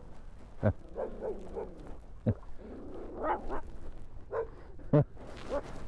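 A Chihuahua barking and yapping in a string of short, irregular barks, apparently at another dog on the canal.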